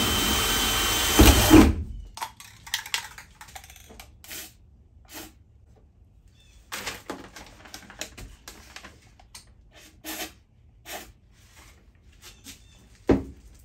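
Yellow DeWalt cordless drill running at a steady speed as it bores a hole through a steel sheet-metal panel, with a couple of heavier knocks as it finishes, stopping about two seconds in. Then faint scattered clicks and rustles of hands working on the panel, and one sharp knock near the end.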